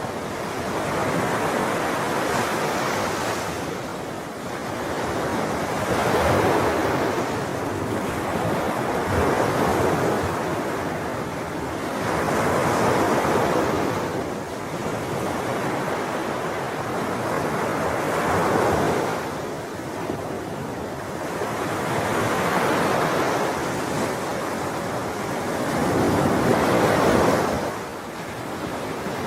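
Sea waves washing ashore, the surf swelling and fading again about every three to four seconds.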